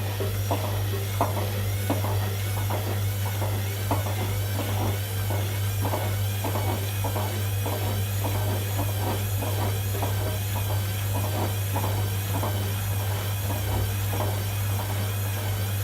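Whirlpool front-loading washing machine running a synthetic 60° cycle: a steady low hum under regular soft swishes, about two a second, as the drum turns with the wash.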